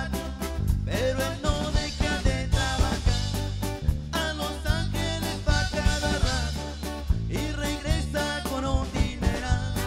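Live band playing upbeat dance music: keyboard, electric bass and drum kit with a steady beat.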